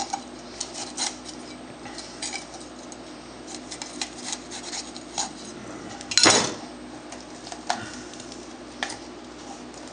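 A kitchen knife cutting and scraping out the core and seeds of a red bell pepper over a plastic cutting board, making scattered small clicks. One louder knock comes about six seconds in.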